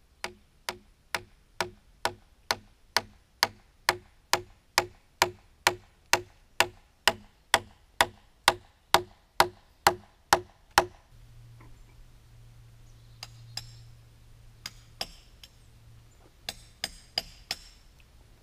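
Large wooden mallet striking the oak sill timber in a steady rhythm, about two blows a second, then stopping about eleven seconds in. Afterwards only a few faint clicks over a low hum remain.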